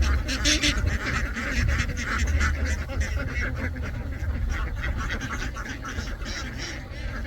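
A large flock of domestic ducks quacking, with many short calls overlapping without a break, over a steady low rumble.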